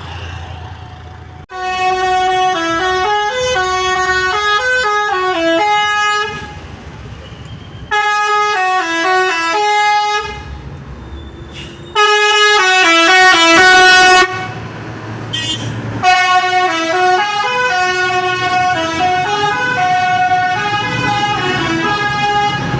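Basuri V3 telolet horn, a multi-tone musical bus horn, playing a tune of quick stepping notes. It sounds in four bursts with short pauses between them.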